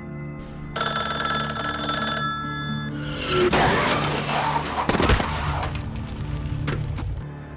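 Film score with held tones, then a crash under the music about three seconds in: noisy crashing and shattering as a car hits a motorcyclist, with one sharp impact about five seconds in.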